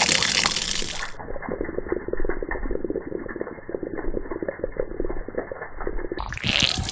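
Water pouring from a public drinking-fountain pipe and splashing. About a second in it turns muffled, with the high end cut off, and it opens up again near the end.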